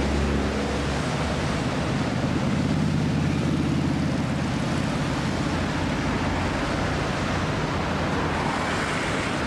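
Steady rush of the Hønefoss waterfall mixed with road traffic passing close by, a vehicle engine humming low through the first half.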